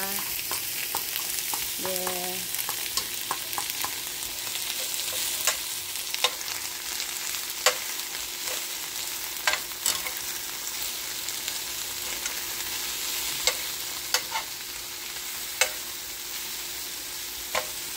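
Vegetables and chicken sizzling in a frying pan as they are stir-fried, with the utensil clicking and knocking against the pan every second or two.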